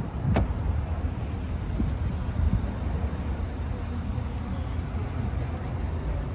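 Low, steady outdoor rumble, with one sharp click about half a second in.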